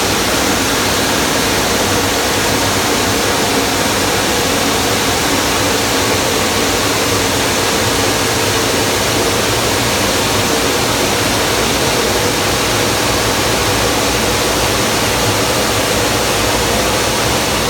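Automatic car wash blower dryer running: a loud, steady rush of air with a faint motor hum.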